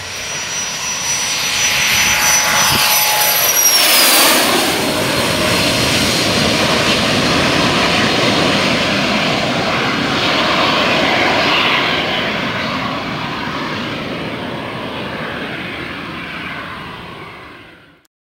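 Cessna Citation business jet's twin turbofans at takeoff power: a high whine that falls in pitch about four seconds in, over a broad jet rush. The noise then fades gradually as the jet climbs away, and cuts off abruptly near the end.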